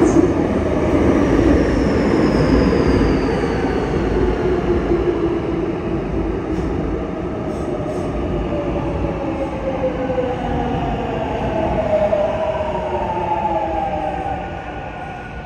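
Seoul Subway Line 7 electric train, set 641 with a Mitsubishi IGBT VVVF inverter, arriving and braking. Wheel and track rumble runs throughout, and the inverter's tones glide mostly downward in pitch as the train slows.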